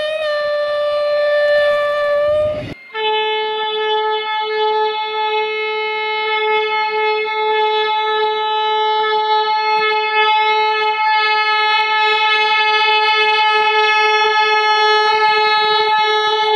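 Locomotive air horn blasts: one horn note sounds for under three seconds and cuts off suddenly, then a lower horn note starts and is held steadily for the rest.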